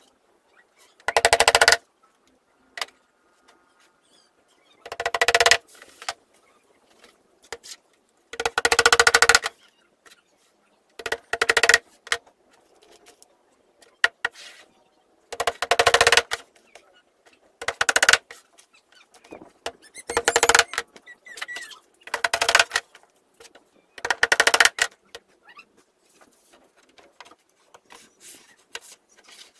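Hammer driving nails through a plywood door skin into a light wooden frame: about nine quick runs of blows, each under a second or two long, with short pauses between as it moves along the edge.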